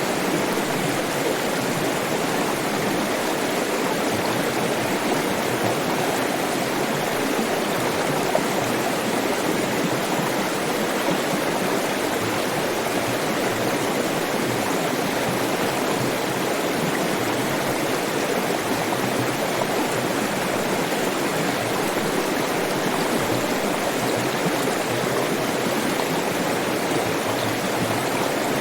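Flowing water running steadily: an even, unbroken rush of a stream.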